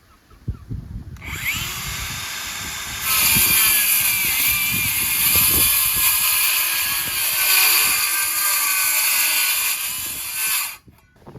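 Handheld power tool running, likely a drill or saw working on the coop during the door installation. It spins up with a rising whine about a second in and gets louder around three seconds. It runs steadily for several seconds, then cuts off abruptly near the end.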